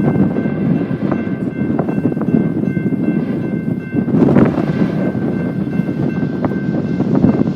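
Freight train rolling by: a steady rumble of wheels on rail, with a few sharp clicks from the rail joints.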